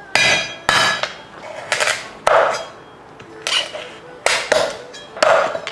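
A steel cleaver chopping raw crab pieces on a wooden chopping board: about seven sharp chops, irregularly spaced, each with a brief ringing.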